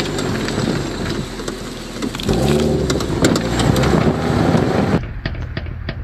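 Car driving over a wet road, heard from under the rear of the body: tyre and road noise with the engine, and a few knocks from a damaged rear suspension arm (trapecio), a fault that usually shows when the car is loaded with passengers in the back. About five seconds in, the sound changes abruptly to a quick run of sharp clicks, about four a second.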